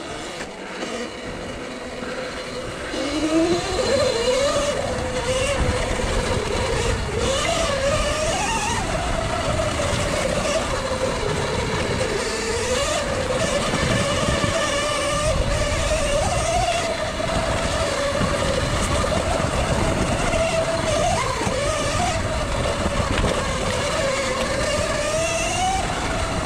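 Electric dirt bike's motor whining while riding. The whine grows louder over the first few seconds as the bike speeds up, then wavers up and down in pitch with the throttle, over a low rush of wind.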